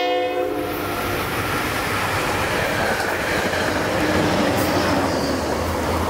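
A diesel locomotive's horn sounds a chord of several tones and cuts off within the first second. It gives way to the steady rumble of the test train passing at speed: two rebuilt Brookville BL20GHM diesel locomotives, each with a Cummins engine, and their coaches, with engine drone and wheels on the rails.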